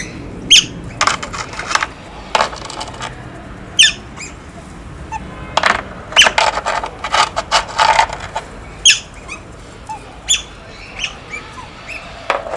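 Otters giving short, high, squeaky chirps at intervals, mixed with bursts of rapid clicking and clattering, as of stones knocked together while they play.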